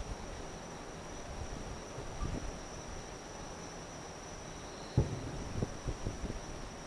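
Distant aerial fireworks shells booming: a sharp low boom about five seconds in, followed by a few smaller thuds, with a weaker one earlier. Under them runs a steady high trill of insects.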